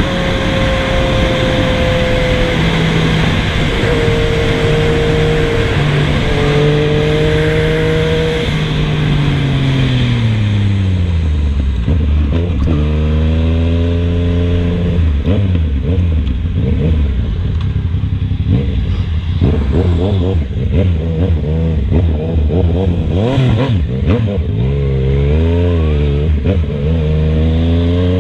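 Yamaha MT-09 three-cylinder engine through an aftermarket 3-into-1 full exhaust. It holds steady revs for several seconds, then drops back to low revs. After that comes a series of throttle blips, with sharp crackles and pops from the exhaust on the overrun, and the revs climb again near the end.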